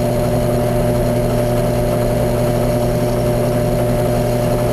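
Drill press motor running at a steady speed, spinning a plastic Pinewood Derby wheel while a hand-held tool shaves its edge thin.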